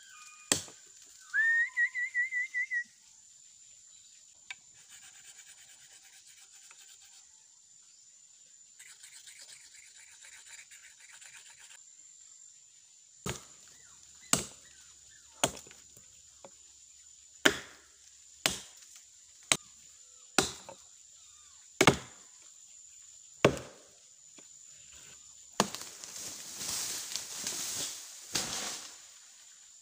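Chopping blows into a felled log, about one a second for some ten strokes. Near the start there is a short rising, warbling whistle. Near the end comes a few seconds of rustling, crackling noise.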